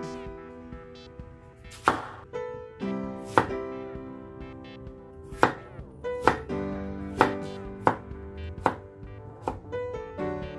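Broad-bladed kitchen knife chopping a raw potato into cubes on a wooden cutting board: a string of sharp knocks of the blade on the board, about one a second at an uneven pace. Soft piano music plays underneath.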